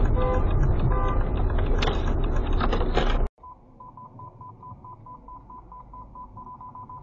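Loud road and wind noise from a moving car, cutting off suddenly about three seconds in. Then a quieter, rapid, even electronic beeping at about five beeps a second: a car's parking-sensor beeper warning of a close obstacle.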